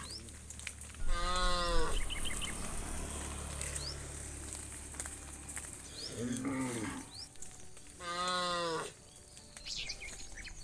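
Cattle mooing: three separate moos of about a second each, the second one lower and falling in pitch.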